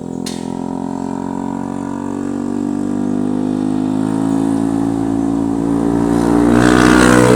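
Motorcycle engine running through an aftermarket racing exhaust, its pitch climbing slowly and steadily as it gets louder, as when accelerating.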